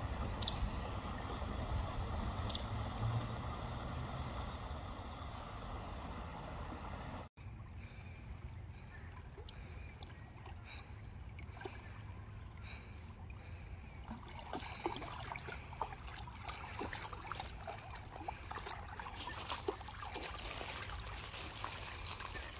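Small creek trickling over a little cascade. After a cut the water is fainter, with light clicks and splashes as a small dog's paws move through shallow water over pebbles and onto gravel, thickening in the second half.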